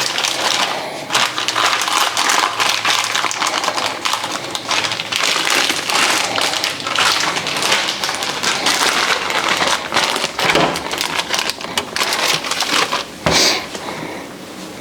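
A hot frying pan sizzling and crackling, with tortillas heating in it. It eases off near the end.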